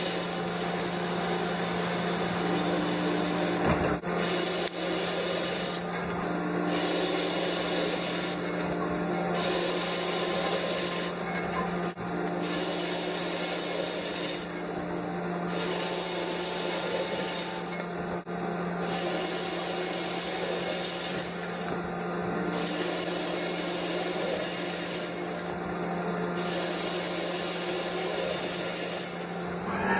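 Mazak Integrex multitasking turning center boring out the bore of a spinning metal workpiece: a steady, even cutting hiss over a constant low hum.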